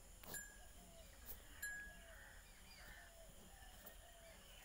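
Quiet outdoor ambience: faint, scattered short bird chirps and a few soft clicks in the first two seconds.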